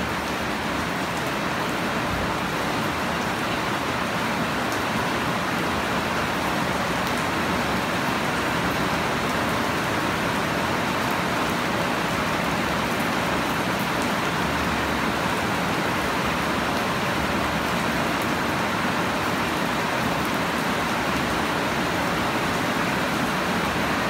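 Heavy rain falling steadily on leafy plants and bare soil, an even hiss of drops with no breaks or changes.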